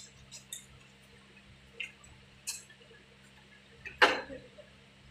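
Light clicks and taps of metal fittings being handled at an air conditioner's service valve and gauge hose, with one louder sharp clack about four seconds in, over a low steady hum.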